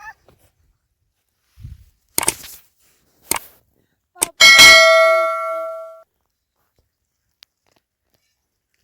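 Three sharp knocks, then a loud metallic clang about four and a half seconds in that rings with several clear tones and fades out over about a second and a half.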